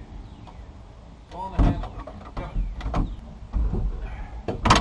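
Excavator cab door latch and handle rattling and clunking as someone tries to open the door: a run of clicks and knocks, loudest about a second and a half in and again near the end.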